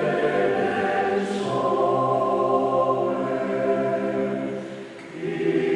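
Male Alpine choir singing unaccompanied in several parts, holding long chords. About five seconds in, a phrase fades away and the next phrase begins.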